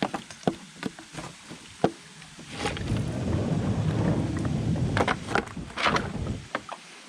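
Kayak paddling: scattered knocks and clicks of the paddle against the hull and small splashes, with a stretch of rumbling rushing noise from about two and a half seconds in that lasts some four seconds.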